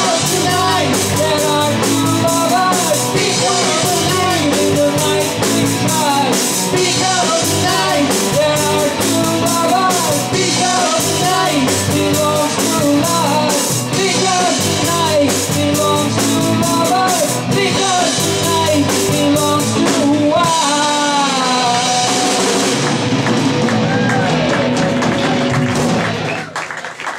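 Live rock band with male lead vocals, electric guitars, bass guitar and drum kit playing the end of a song. The singing stops about three-quarters of the way through, the band holds a final chord, and it fades out near the end.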